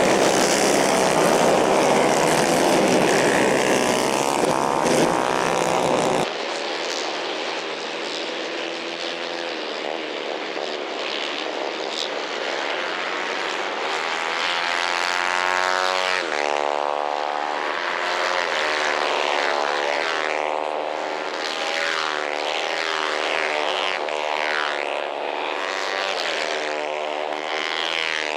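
Engines of 150 cc racing karts on a dirt track. One kart engine runs close and loud, then after a cut about six seconds in several kart engines are heard further off, their pitch rising and falling as they speed up and lift off.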